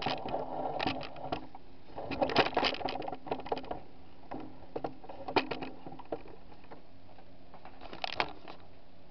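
Handling noise from a camera being picked up and repositioned: rustling, bumps and clicks for the first few seconds, then a few scattered knocks, over a faint steady hum.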